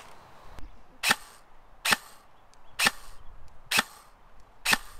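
Custom KWA KM4 airsoft electric rifle firing five single shots, about one a second, each a short sharp crack.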